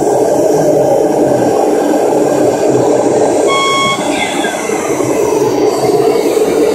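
Steady loud din of a crowded hall, with one short electronic beep about three and a half seconds in.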